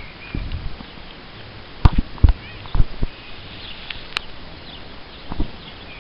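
Horse cantering on a sand arena, its hoofbeats coming as irregular dull thuds, the loudest a little after two seconds in.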